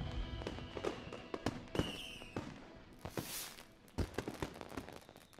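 Fireworks crackling and popping, with a short whistle about two seconds in and a brief rush about a second later, fading away.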